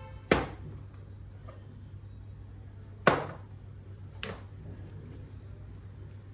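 Three sharp knocks of hard objects against a surface, the first two loud and the third fainter, the sound of items being handled and set down while unboxing, over a steady low hum.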